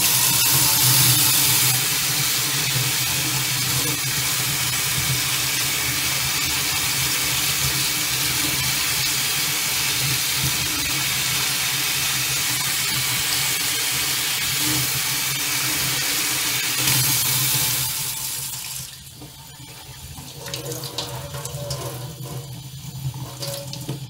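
Tap running hard into a stainless steel sink, the water spraying through a mesh tea-infuser ball of seed held under it for a vigorous rinse. About 18 seconds in, the flow is turned down to a thin stream and the sound drops to a quieter splashing.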